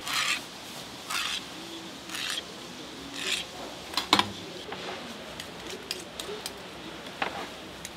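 Fish-cake paste being scraped and worked with a hand tool, in short scraping strokes about once a second, then a sharp knock about four seconds in and another near the end.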